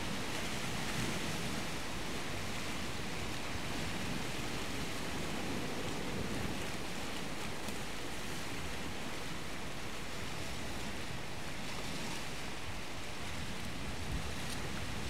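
Steady wash of sea surf on a rocky shore, an even rushing noise with no distinct breaks.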